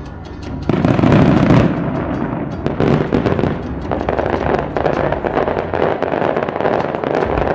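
Fireworks display with traditional Japanese wabi shells: a loud boom about a second in, then dense, continuous crackling and popping of bursting shells.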